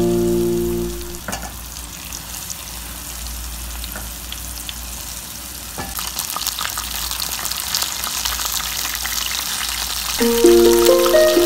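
Battered squid rings deep-frying in hot oil: a steady sizzle and crackle that grows busier about halfway through, with a few sharp clicks as the pieces are turned. Background music plays for the first second and comes back near the end.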